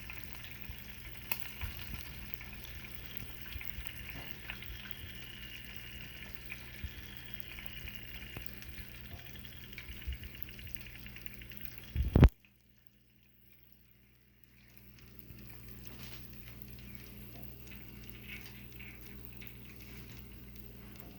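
A roast sizzling and spitting as it cooks, with scattered small pops. About twelve seconds in there is a loud knock, then a couple of seconds of near silence, and the sizzling comes back fainter.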